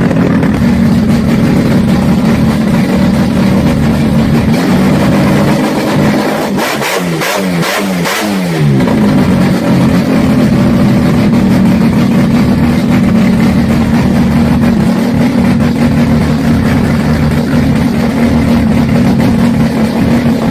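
Twin-turbo engine revved hard and held at high revs. About six seconds in the revs drop and are blipped up and down a few times, then held high again.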